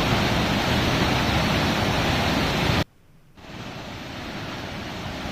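Steady rushing roar of Harvalem waterfall. About halfway through it cuts out abruptly for half a second, then comes back quieter.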